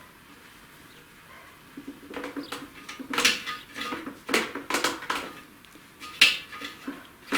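Metal engine parts clinking and knocking as they are handled: the intermediate shaft and its drive gear being test-fitted in a VAZ 2106 cylinder block. A quick run of light clinks starts about two seconds in, and sharper single clicks come near the end.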